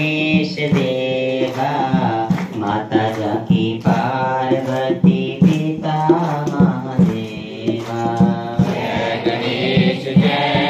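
Hindu devotional aarti chant sung to music with a steady beat.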